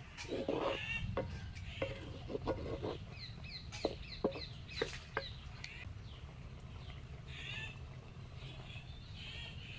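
Wooden spoon knocking and scraping against a clay cooking pot while stirring. Hens cluck in the background, and a quick run of high chirps comes midway.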